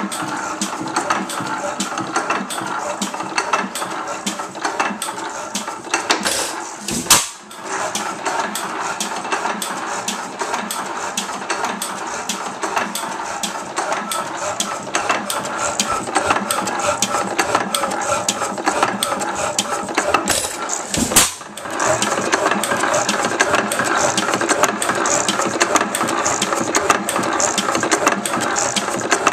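1903 Fairbanks-Morse type N 5 hp single-cylinder hit-and-miss gasoline engine running, its flywheels turning with a continuous fast clatter of valve gear and moving parts. Two brief louder bumps come about seven and twenty-one seconds in.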